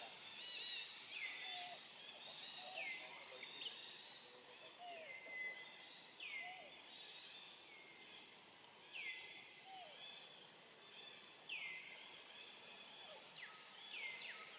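Faint outdoor ambience with a bird calling over and over, a short falling note every second or two.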